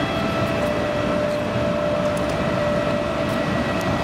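Steady jet whine over a broad rumble from aircraft machinery on an airport apron.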